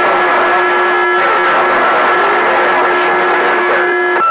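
CB radio receiver audio on channel 28 during skip: a loud bed of static hiss with several steady whistle tones from overlapping carriers, and faint garbled signals wavering underneath. Two of the whistles cut off just before the end.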